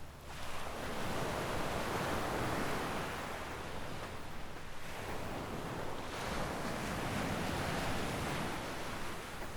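Small waves breaking and washing up a sandy beach, swelling twice, about five seconds apart.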